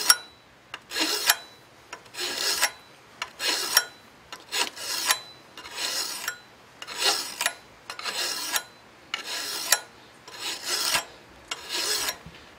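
Rough-cut hand file rasping across the edge of a steel blade clamped in a vise, in long forward strokes about once a second with short quiet gaps between them. The blade's edge is being trued up by filing before it is filed down sharp.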